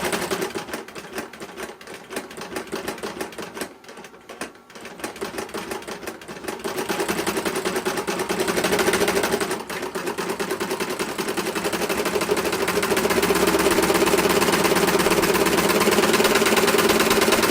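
Industrial leather sewing machine running under foot-pedal control: first a few slow, uneven stitches, then speeding up from about six seconds in to a fast, steady run of stitching strokes.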